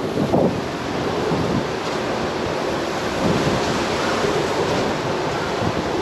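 Wind buffeting an outdoor microphone, a steady rushing hiss with a few low rumbling gusts, about a second in, around three seconds in and near the end.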